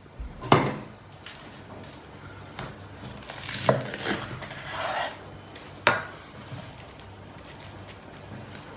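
Knife cutting through the crisp oven-baked yufka crust of a pastry-wrapped sultan kebab on a wooden cutting board: crackling, rasping cuts with a few sharp knocks, three of them standing out, the loudest about half a second in.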